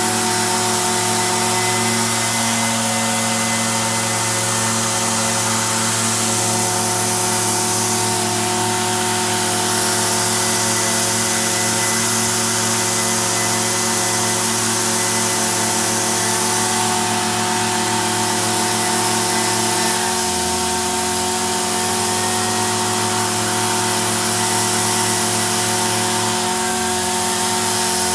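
Small two-stroke engine of a handheld power tool running steadily at a constant speed, with brief slight changes in speed about twenty seconds in and again near the end.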